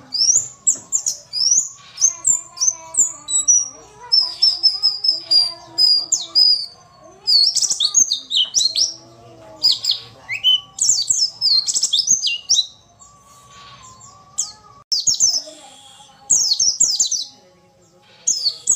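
White-eye (pleci) singing: fast bursts of high, sharp chirps and twittering notes with short pauses between them, including a gap of about two seconds past the middle. It is offered as a female's call used as a lure to set male white-eyes singing.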